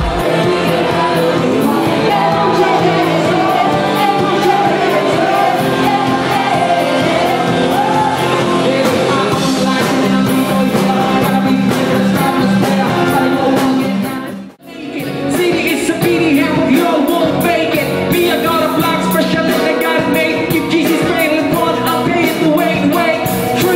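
Loud music with singing. It drops out for a moment about halfway through, then starts again.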